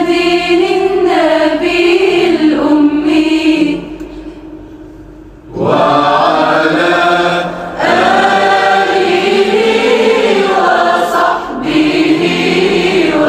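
Voices chanting a shalawat, the Arabic devotional blessing on the Prophet Muhammad, in long drawn-out melodic phrases. The chanting breaks off about four seconds in and resumes a second and a half later.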